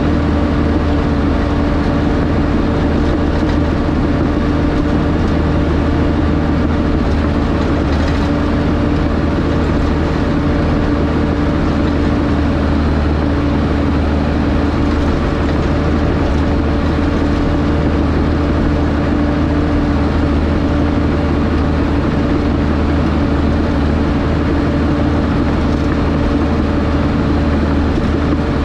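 Diesel engine of a piece of heavy earthmoving equipment running steadily at an even speed.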